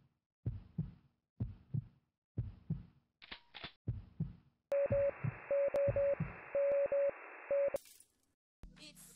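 Intro sound effects: a heartbeat-like double thump repeating about once a second, a couple of sharp clicks about three seconds in, then a band of static hiss with short repeated beeps that cuts off in a sharp burst near the end.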